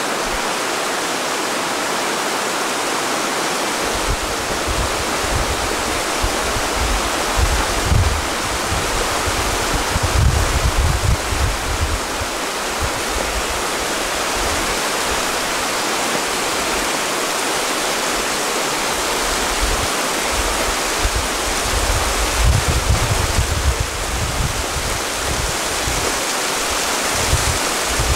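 Steady rush of a fast mountain river over rocks. Irregular low rumbles of wind on the microphone come and go, about four seconds in and again past the twenty-second mark.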